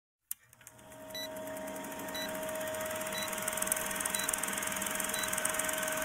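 Film-projector countdown-leader sound effect: a steady mechanical whirr and fast clatter with a faint hum, fading in over the first second or two, with a short faint beep about once a second.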